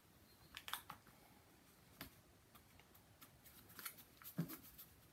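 Faint taps, clicks and rustles of small kraft-card boxes being handled and set down on a card board, a few sharp clicks spread through, the loudest a tap with a short thud about four and a half seconds in.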